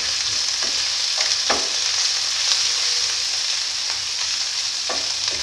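Garlic-ginger paste sizzling steadily in hot oil in a wok while it is stirred with a wooden spatula, with a few light scrapes of the spatula against the pan.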